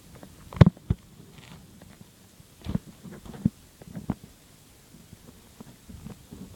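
Olive ridley sea turtle moving in the sand, with a handful of dull thumps and scuffs; the loudest comes about half a second in, and a few more follow over the next few seconds.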